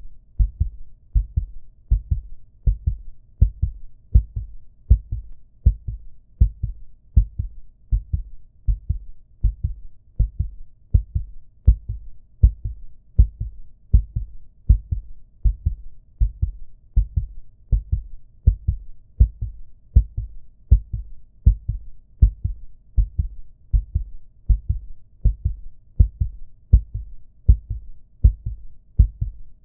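Recorded human heartbeat sound effect beating steadily: low, dull thumps in an even rhythm of about one beat a second.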